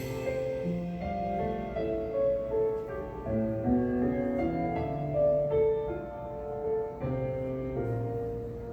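Instrumental music led by soft piano or keyboard, slow held notes changing about every half second.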